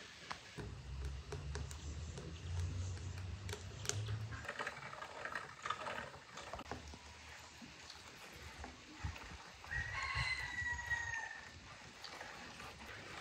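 A rooster crows once about ten seconds in, a single drawn-out call lasting a little over a second and falling slightly at the end. A low rumble runs under the first few seconds.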